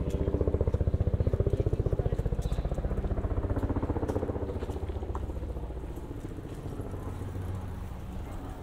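A motor vehicle's engine passing close by, loudest in the first few seconds and then fading away.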